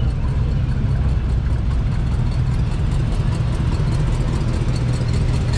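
Engines of classic cars running at a low, steady idle as they cruise slowly past in a line.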